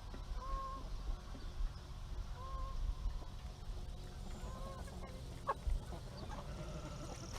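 Chickens calling: three short, arched calls about two seconds apart, over a steady low rumble. A sharp click comes about five and a half seconds in.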